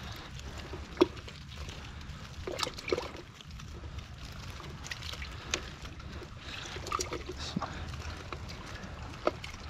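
Hands picking small live baitfish (greenies) out of a nylon cast net on rocks: scattered light clicks and rustles of the mesh and fish, over a low steady background noise.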